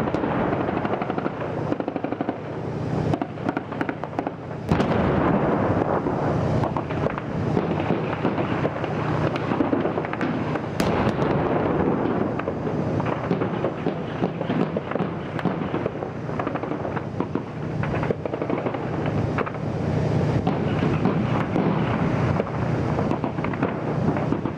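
Shelling with heavy gunfire: a dense, continuous crackle of shots and shell impacts, with one louder, sharp crack about five seconds in.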